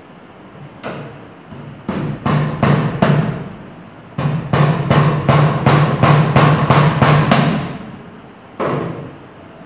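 Claw hammer driving a thin wooden dowel into an old screw hole in a melamine particleboard cabinet panel, plugging the stripped hole so it can take a screw again. A few separate blows, then a quick even run of about four blows a second, and one last tap near the end.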